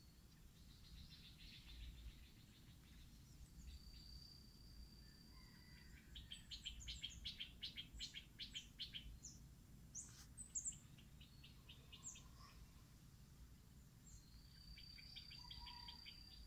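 Faint birdsong from several birds: fast trills of rapidly repeated high notes coming in bursts, a long steady whistle near the start and again near the end, and a few sharp chirps around the middle.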